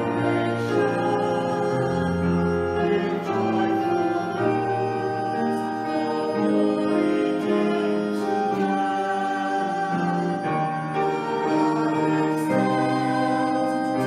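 Organ playing a hymn in slow, held chords that change every second or so, with a congregation singing along.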